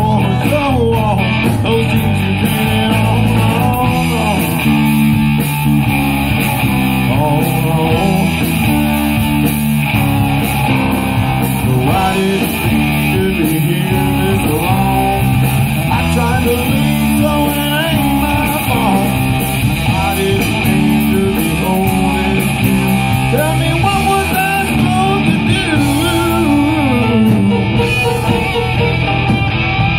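Live country-rock band playing an instrumental passage: electric guitars over bass guitar and drums, with a guitar line of bending notes.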